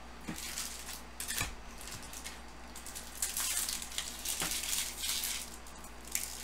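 Foil trading-card packs and wrappers rustling and crinkling as they are handled, in short irregular bursts that get busier a few seconds in, with a few light clicks.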